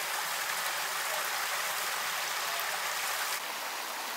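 Hot spring water cascading over rocks into a pool, a steady rushing splash that gets a little softer about three and a half seconds in.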